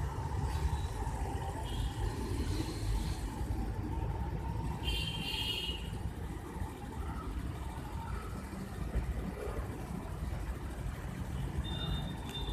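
Street traffic ambience: a steady low rumble of vehicles, with a brief high-pitched chirping sound about five seconds in.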